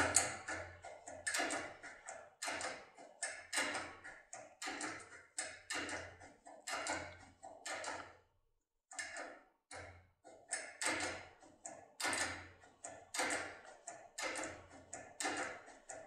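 Topolino impression decoder working the pins of an ABUS D6 cylinder lock: a run of small metallic clicks and taps, in groups about one to two a second, as tension is set and the impression part is pressed onto the pins and released. The clicking stops briefly about eight seconds in.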